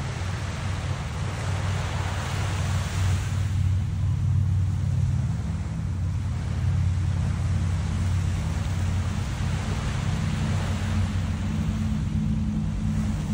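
Small waves washing up on a sand beach, swelling twice, over a steady low engine drone.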